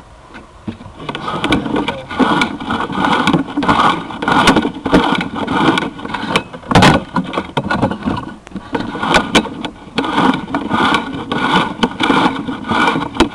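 Sewer inspection camera's push cable being pulled back out of the drain line, scraping and rattling in uneven surges with many sharp clicks, starting about a second in.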